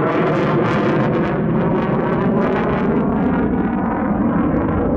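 Jet noise from the single Pratt & Whitney F135 turbofan of an F-35A Lightning II flying overhead, loud and steady. A ragged crackle rides on it for the first second or so, and then the high hiss eases off.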